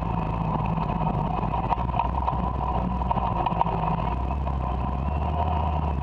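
Electric race car with a DC drive motor running at low speed: steady motor and drivetrain whine over low road and wind rumble.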